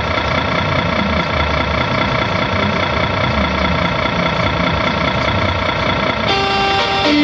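Simulated heavy diesel engine idling steadily from a miniature RC truck's sound unit. About six seconds in, a multi-tone "telolet" bus horn starts playing held musical notes, changing pitch near the end.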